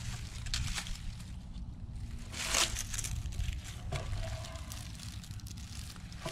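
Footsteps in rubber boots crunching through dry leaf litter, with one louder crunch about two and a half seconds in, then rustling as a wooden board lying on the leaves is grabbed and lifted, and a sharp knock at the very end.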